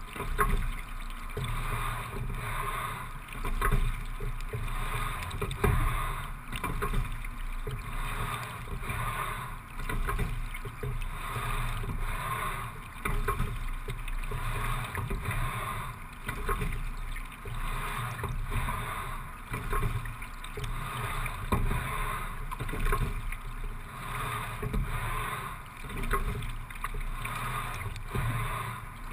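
Single racing scull being rowed at a steady-state pace of about 17–18 strokes a minute. Water runs along the hull, swelling with each stroke about every three and a half seconds.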